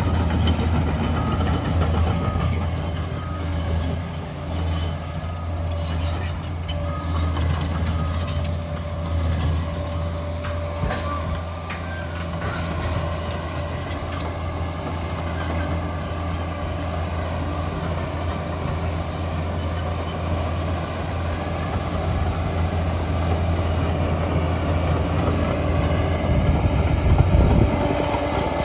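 Liebherr PR 746 crawler dozer's diesel engine running steadily as the machine works, with a few short knocks in the first half and a brief louder swell near the end.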